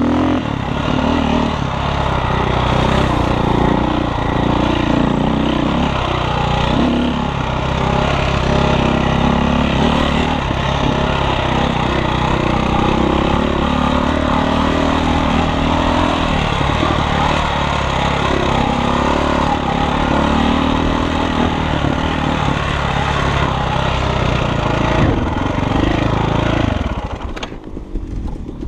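Dirt bike engine running under way, heard up close from the bike, its pitch wavering as the throttle goes on and off over the rough track. About 27 seconds in, the bike slows and the engine sound drops away.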